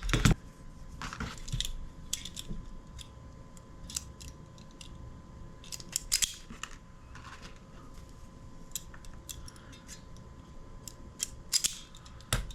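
Hand wire stripper snipping and pulling insulation off a small wire, heard as a series of sharp irregular clicks and snips with light handling rattle between them.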